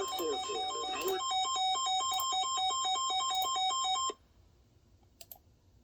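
Electronic jingle of beeping tones that alternate in pitch over a fast regular ticking. It cuts off abruptly about four seconds in, leaving near silence with one faint click.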